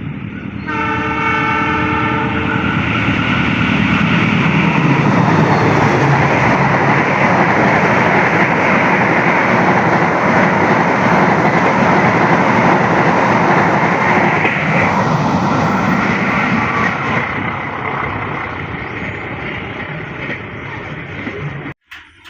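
Train horn sounds one blast of about two seconds right at the start, then a train passes close by with loud, steady rolling noise that builds and slowly fades before cutting off abruptly near the end.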